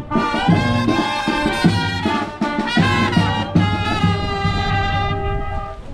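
A brass band playing, sousaphone bass pulsing under trumpets and other horns; the tune ends on a held note near the end.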